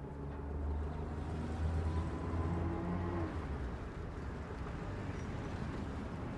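Car engine running with a low rumble that rises in pitch as it revs, then eases off about three seconds in to a quieter, steady run.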